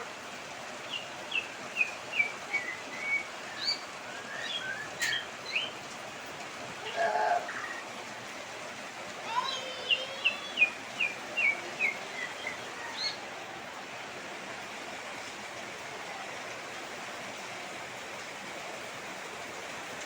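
A bird calling over the steady hiss of heavy rain: a quick run of short chirped notes starting about a second in, a lower call around seven seconds, then a second run of chirps from about ten to thirteen seconds.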